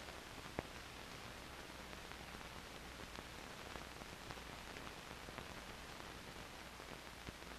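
Steady faint hiss with a low hum from an old 16mm film soundtrack carrying no sound effects, with a single click about half a second in.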